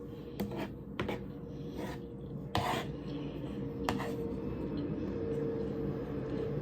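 Eating sounds: a utensil scraping and clicking against a plate of rice, several short knocks and scrapes with the strongest about two and a half seconds in, over a faint steady hum.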